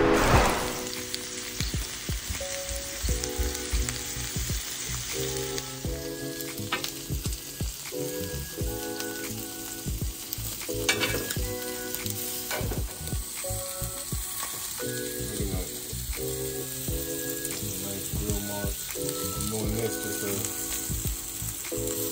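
Pieces of boiled octopus coated in garlic-herb olive oil sizzling on a hot grill, with scattered pops and crackles.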